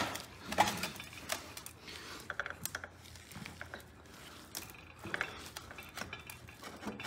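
Light metallic clicks and scrapes as the crankshaft of a Clinton C-700 small engine is worked out of its crankcase.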